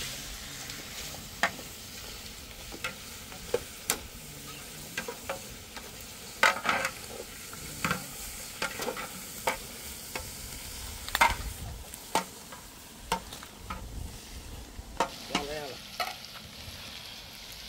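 Meat frying and sizzling in a metal pot, with a metal spoon scraping and knocking against the pot at irregular moments as it is stirred.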